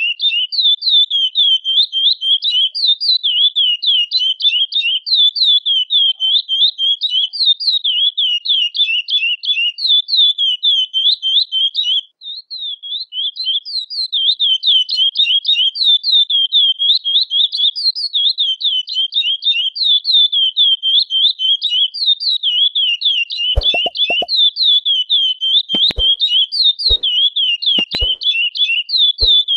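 Curió (chestnut-bellied seed finch) calling in a continuous run of quick, repeated high chirping notes, several a second, broken only by a short pause about twelve seconds in. A few sharp clicks come in the last six seconds.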